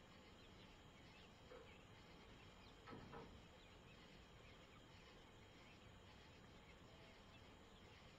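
Near silence: a steady faint hiss with a few faint, short high chirps, and one brief soft sound about three seconds in.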